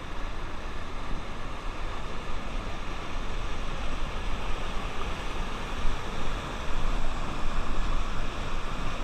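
White water of a river cascade rushing through narrow rock channels: a steady, even rush with no breaks.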